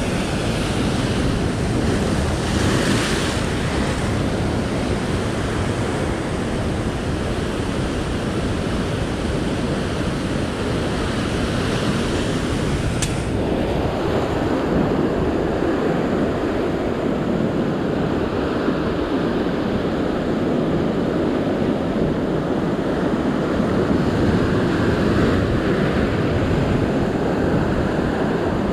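Sea waves breaking and washing over a rocky shore ledge: a steady rush of surf. About halfway through there is a sharp click, after which the surf sounds duller.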